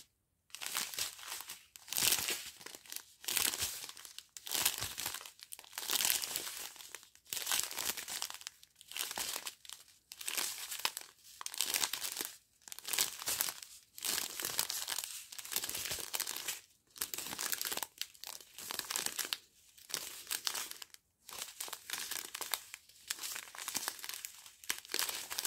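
Small plastic zip bags of round diamond-painting drills crinkling as they are handled and turned over in the hand, in irregular bursts about once or twice a second.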